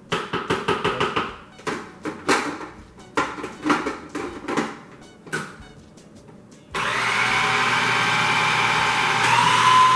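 Knocks and clatter as a food processor's bowl and lid are handled, then about seven seconds in the food processor's motor starts and runs steadily, pureeing chickpeas and roasted red peppers into hummus. Its whine steps up in pitch near the end as the motor speeds up.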